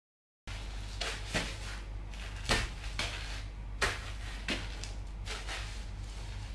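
Cowboy boots stepping and grinding on a tile floor strewn with crushed Ritz crackers: about six sharp heel clicks and crunches, two of them louder, over a steady low hum. The sound begins abruptly about half a second in.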